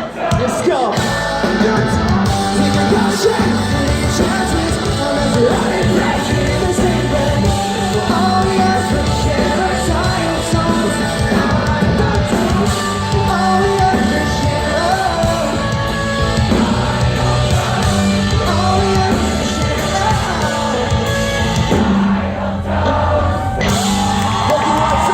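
Live pop-punk band playing at full volume with a singer, and the crowd yelling along.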